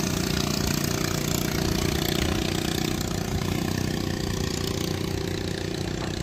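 A boat engine idling steadily, with an even low running note that holds throughout.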